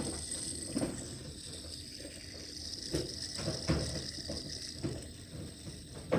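Light clicks and knocks of a heavy metal fidget toy being handled and spun, a handful of separate taps over a faint steady background hum.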